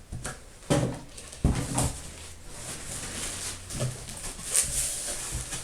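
Cardboard box and packaging being handled and opened: rustling with a few short thumps.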